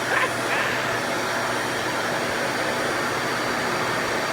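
RevAir reverse-air hair dryer running steadily, its motor drawing air and hair into the wand with a vacuum-cleaner-like rush and a thin high whine on top.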